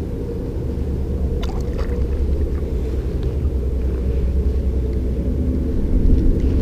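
Wind buffeting the camera microphone: a steady low rumble, with a few faint clicks about one and a half seconds in.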